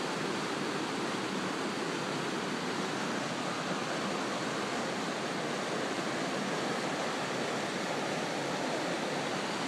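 Rushing water running steadily, an even, unbroken rush.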